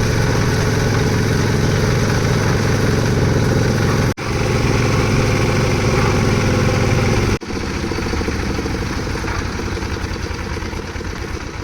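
Concrete mixer's engine running steadily at a low rumble. It is broken by two abrupt cuts, about 4 s and 7.5 s in, and is quieter with less bass after the second cut.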